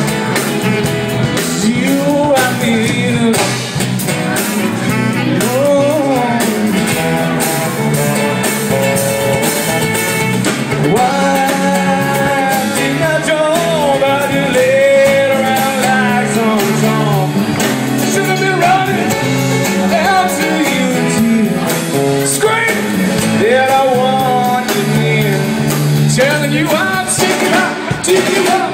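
A band playing a song, with a singer's voice over held low bass notes and accompanying instruments.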